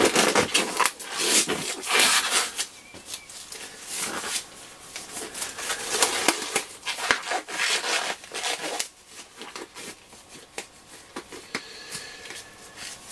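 Blue nitrile gloves being pulled on and worked down over the fingers: rubbery rubbing and rustling with many small, sharp clicks and snaps.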